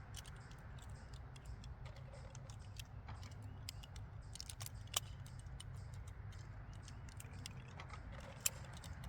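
Scattered light metallic clicks and ticks of ammunition and magazine handling at the bench, with two sharper clicks about five and eight and a half seconds in.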